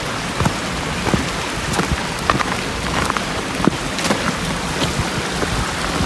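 Footsteps crunching through dry fallen leaves on a forest trail, roughly three steps every two seconds, over a steady rushing hiss.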